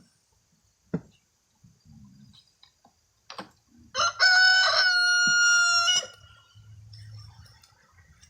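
A rooster crowing once, one call of about two seconds, with a short sharp click about a second in.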